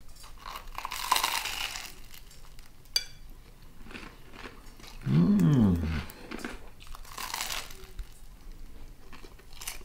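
Crunchy bites into a toasted grilled cheese sandwich, with chewing. About five seconds in, the loudest sound is a hummed 'mmm' that rises and then falls in pitch.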